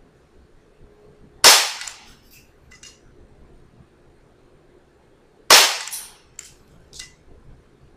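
Umarex airsoft Glock 17 pistol firing two shots about four seconds apart, each a sharp pop with a short tail, followed by a few much fainter clicks.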